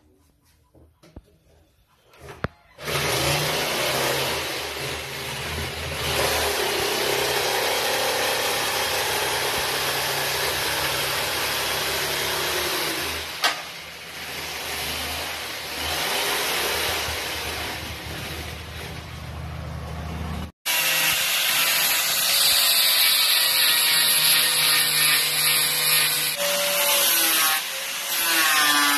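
Corded electric jigsaw starting up about three seconds in and running steadily as it cuts through a wooden shelf board. It stops abruptly about two-thirds of the way through. An angle grinder with a sanding disc then runs against a wooden board.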